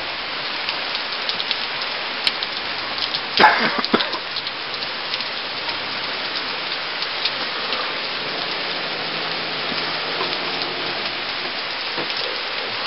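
Steady rain falling, a continuous hiss full of fine drop ticks, with one brief louder sound about three and a half seconds in.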